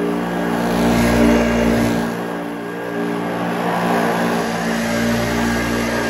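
Hoover Junior Exclusive U1206 upright vacuum cleaner running on carpet, a steady motor hum with a rushing air sound, swelling and easing a little as it is pushed back and forth.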